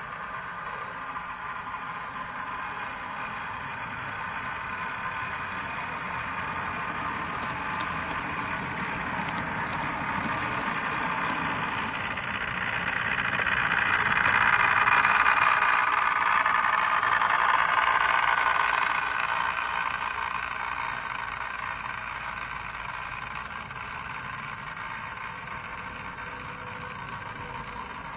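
Model diesel multiple unit running past along the layout's track, a steady running noise that builds to its loudest about halfway through and fades again.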